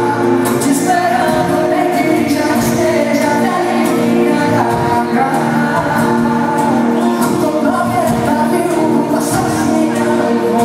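Live band music with singing, played loud through an arena sound system.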